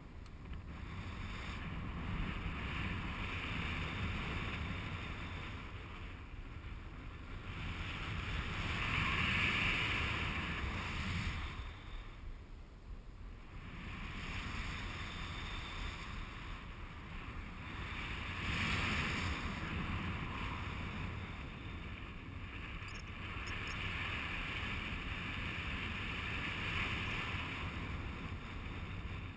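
Wind rushing over the microphone of a pilot-worn camera as a paraglider flies. It is a steady rush that swells and eases, louder about a third of the way in and again past the middle.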